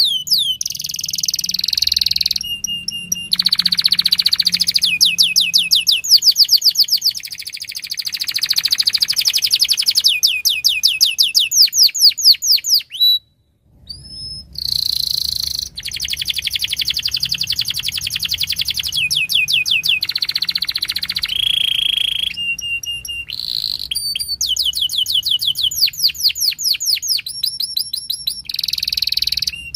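Domestic canary singing a long song of rapid trills, moving from one run of fast repeated notes to the next every second or two, with a brief break about halfway through.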